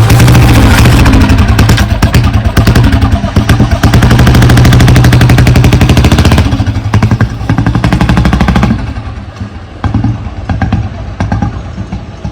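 Royal Enfield Bullet 350 single-cylinder engine running with rapid, loud exhaust firing pulses. About nine seconds in it eases off to quieter, uneven thumps.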